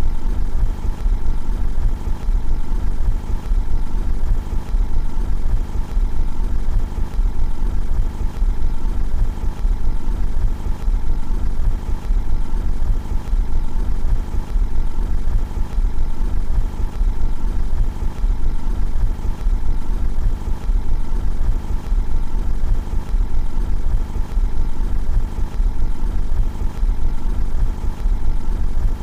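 Car engine idling steadily, heard from outside the car, with a fast, even pulse and no revving.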